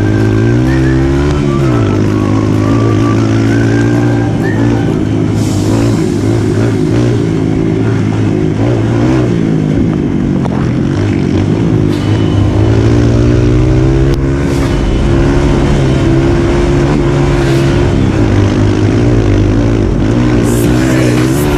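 Honda CRF150L's single-cylinder four-stroke engine pulling hard, its revs rising and falling several times as the bike accelerates and changes gear, with a steady rush of wind over the microphone.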